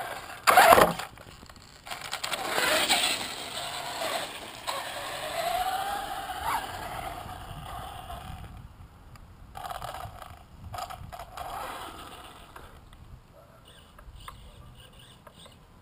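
Electric Traxxas Stampede 4x4 RC truck driving on concrete: a loud sudden burst as it launches, then the motor's whine rising and falling with the throttle over the rolling tyres, and a few short bursts of throttle as it comes back.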